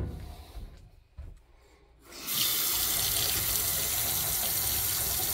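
Kitchen faucet turned on about two seconds in, water running steadily into the sink. The flow is even with no pulsing, a sign that the pump and accumulator tank are holding steady pressure.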